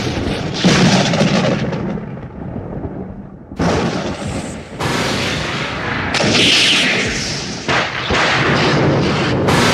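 Thunderclap sound effects: a run of loud lightning cracks, a new one breaking in every second or two, each a sudden crash trailing off into rumble.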